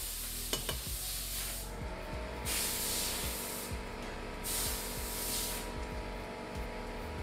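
A wet paintbrush swishing in long strokes, three of them about a second each: the first as the brush is worked in the water bowl, the next two as a watery acrylic wash is brushed across the canvas.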